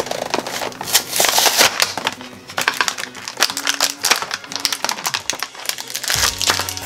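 Clear plastic blister packaging crinkling and crackling in short clicks as a toy figure pack is pulled open by hand, over light background music.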